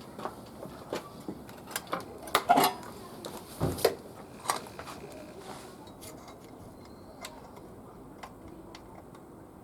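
Metallic clinks and knocks of tools and metal parts being handled during motorcycle oil-change work, busiest around the middle, then thinning to a few light ticks.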